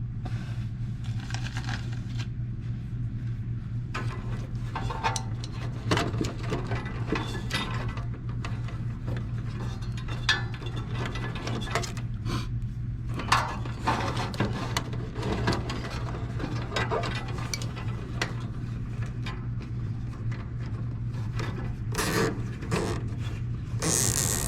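Hands working on a gas furnace's wiring and cabinet: scattered clicks, rubs and scrapes over a steady low hum, as loose connections are tightened and wires tied up.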